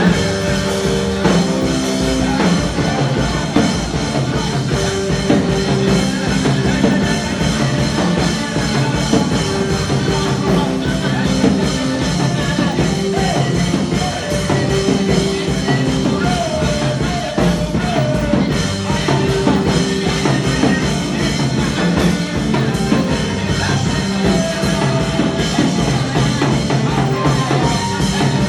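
Gospel backing music: a drum kit keeping a steady, busy beat under sustained held chords.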